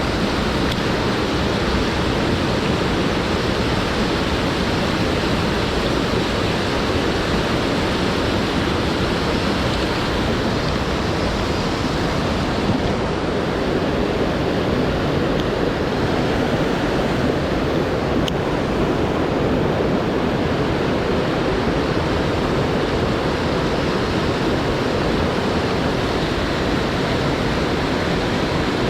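Swollen mountain stream rushing in high water: a loud, steady wash of running water.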